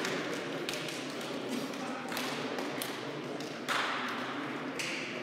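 Echoing sports-hall ambience: indistinct voices with scattered taps and thumps, such as footsteps and a ball on the wooden court.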